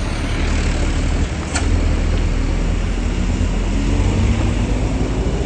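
Tour bus diesel engine running close by, a steady deep rumble with a single sharp click about one and a half seconds in.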